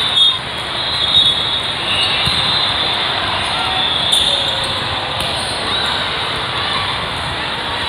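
Volleyball rally on an indoor sport court: steady crowd and hall noise, with a few hand-on-ball hits and sneaker squeaks.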